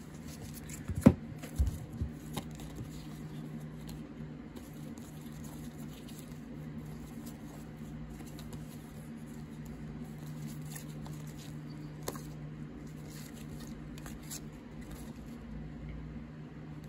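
Hands shuffling through a stack of trading cards in plastic sleeves and rigid toploaders: a few sharp clicks and taps about one to two seconds in, then faint rustling and ticking over a steady low hum.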